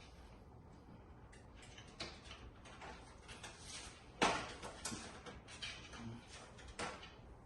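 Scattered clicks and knocks of a PC case being handled as a part is worked loose by hand, with the loudest knock near the middle.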